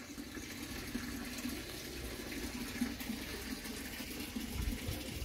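Steady running water, a continuous splashing hiss.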